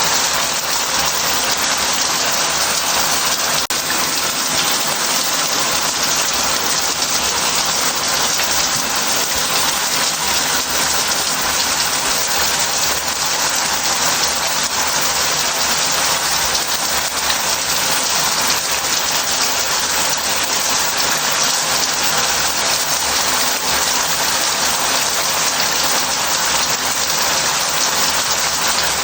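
Shower head spraying water steadily into a bath, a constant hiss of water hitting the tub.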